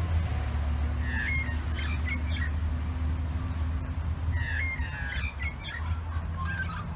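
Australian magpies squawking: two bursts of harsh calls, about a second in and again around four and a half seconds, with fainter calls near the end, over a steady low rumble.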